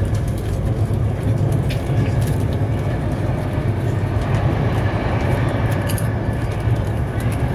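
Inside a moving Class 390 Pendolino electric train: the steady low rumble of wheels and running gear on the track, with a few faint clicks.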